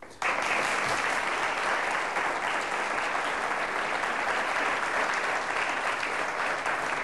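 Studio audience applauding, breaking out suddenly just after the start and holding steady.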